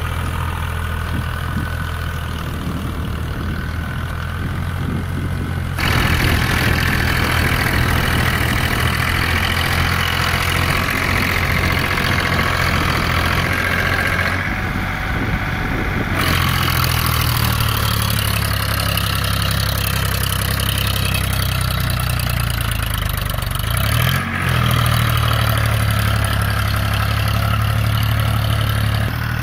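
Powertrac 439 tractor's diesel engine running steadily under load, a low even note, as the tractor works through deep paddy-field mud on cage wheels. The background noise changes abruptly about six seconds in and again around fifteen seconds in.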